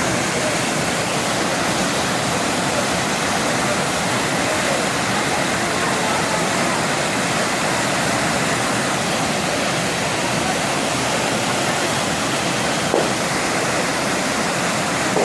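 Rushing water, a steady dense hiss that does not let up, with one short faint knock about thirteen seconds in.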